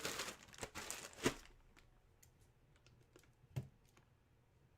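Rustling for about the first second and a half, then a few scattered clicks of typing on a computer keyboard.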